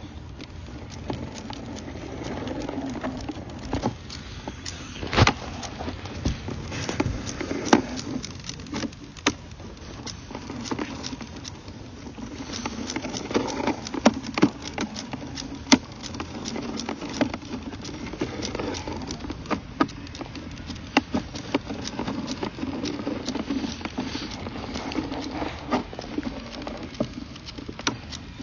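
Sewer inspection camera and its push cable being fed along a sewer pipe: irregular clicks, knocks and scraping over a steady rumble as the camera head travels through the line.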